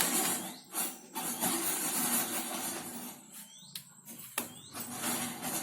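Metal parts of a disc-brake caliper being handled and fitted back on, with a few sharp clicks and knocks over a steady hiss.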